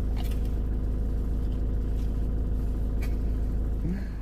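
Van engine idling: a steady low hum, with a couple of faint clicks and a short rising squeak near the end.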